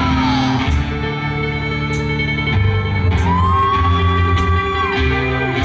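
Live rock band playing, with electric guitar and drums. A little over halfway through, a long high note comes in, is held for nearly two seconds, then falls away.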